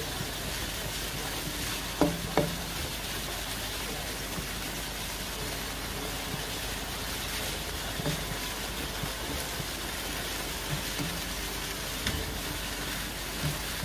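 Food sizzling steadily in a non-stick wok as it is stirred with a spoon, with two sharp knocks of the spoon against the pan about two seconds in and a few lighter taps later.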